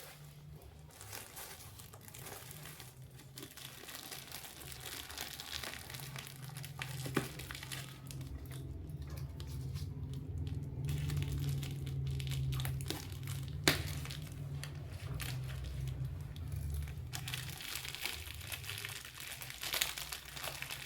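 Packaging crinkling and tearing as a parcel is unwrapped by hand, irregular rustling with a few sharp snaps.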